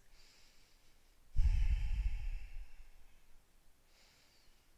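A long audible exhale by a person close to the microphone, with a low rush of air, starting about a second and a half in and fading out over about a second and a half.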